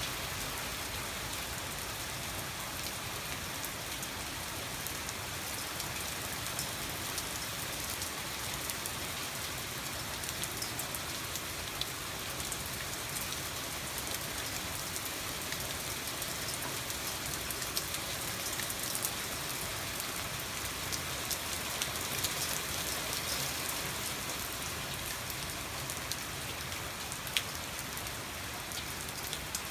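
Heavy, steady thunderstorm rain, a dense hiss with many sharp ticks of single drops striking nearby surfaces.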